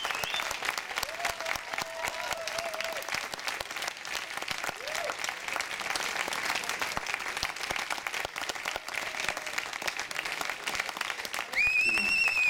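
Audience applauding steadily, with a few voices calling out faintly. Near the end a loud, high whistle rises over the clapping.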